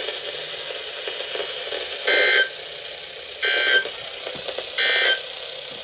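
NOAA Weather Radio SAME end-of-message code: three short bursts of warbling digital data tones, each under half a second, about a second and a half apart, over steady radio static. The bursts mark the end of the broadcast severe thunderstorm watch message.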